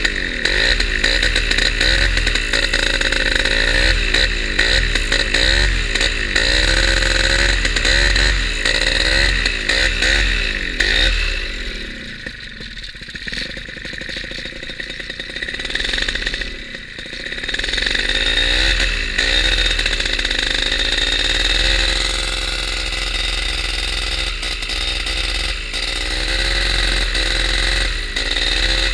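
Simonini Mini 2 two-stroke paramotor engine and propeller running hard, with its pitch wavering. It eases off for a few seconds around the middle, then revs back up. The owner's complaint is that the engine won't perform well at full throttle.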